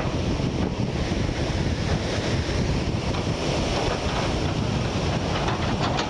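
Waves breaking and whitewater washing toward the beach, heard under steady wind buffeting the microphone.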